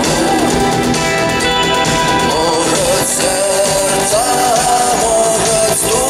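Rock band playing live: bass and electric guitars under a wavering melody line that carries the tune.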